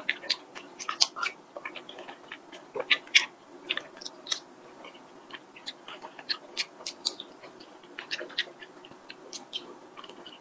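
Close-up eating sounds: a small plastic spoon clicking and scraping in a clear plastic cup of soft milk pudding with mulberries, with chewing and mouth sounds. The sound comes as irregular sharp clicks in small clusters.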